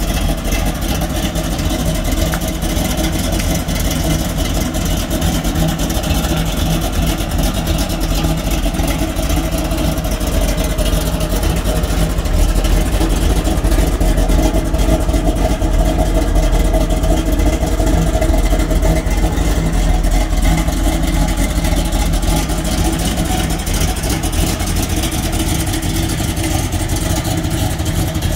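A 1984 Oldsmobile Cutlass Supreme's engine running steadily at idle, a low exhaust note that grows a little louder around the middle.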